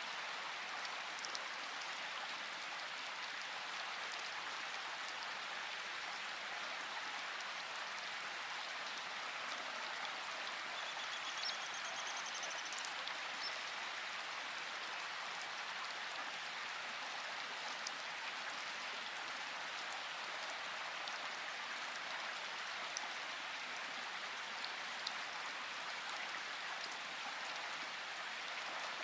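Steady rain: an even hiss of falling rain, with a few louder drops ticking here and there.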